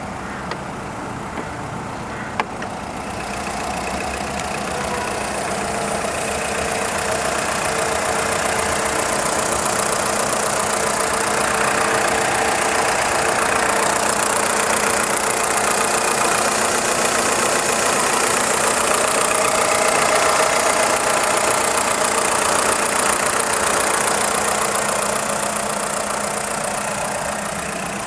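VW Polo 6N2 1.4 16V petrol four-cylinder engine idling steadily, with the light clacking from the engine block that the owner hears only at idle and that goes away when the engine is revved; the owner does not know its cause. It grows louder over the first several seconds, with one sharp click about two and a half seconds in.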